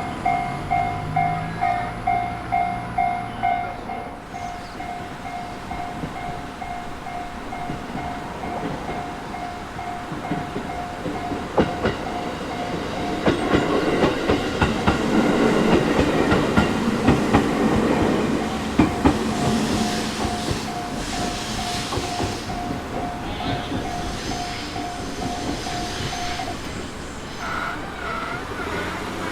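Japanese level-crossing warning alarm ringing steadily at about two strikes a second while a train runs over the crossing: a rumble with rhythmic wheel clatter over the rail joints, loudest in the middle, then fading. The alarm cuts off a few seconds before the end, as the crossing clears.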